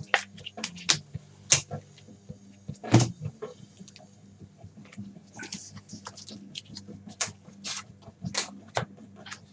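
Trading cards and a foil card pack being handled: a string of clicks, snaps and rustles, with a knock on the table about three seconds in and a short crinkle of wrapper about five and a half seconds in, over a low steady hum.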